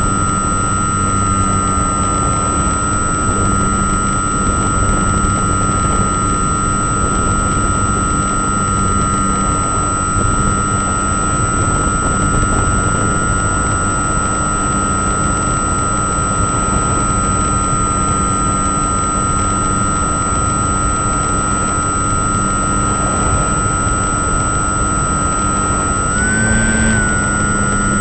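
An engine running steadily with a high, even whine over a rushing noise; its pitch steps up briefly near the end.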